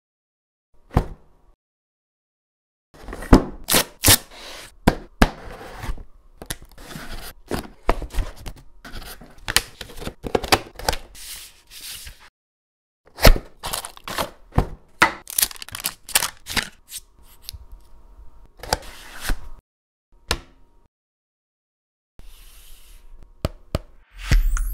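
Cardboard laptop packaging and paper inserts being handled: boxes and sleeves opened, papers slid out. The sound is a series of sharp taps, knocks and scrapes with rustling between them, in bursts separated by brief silences. A low rumble starts just before the end.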